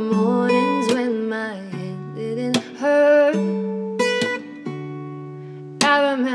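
A woman singing a slow pop ballad over a strummed acoustic guitar, the voice coming in phrases with the guitar chords ringing on between them.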